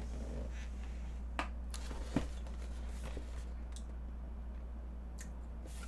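A few short taps and light rustles as a cardboard cake box is picked up and handled, over a steady low hum.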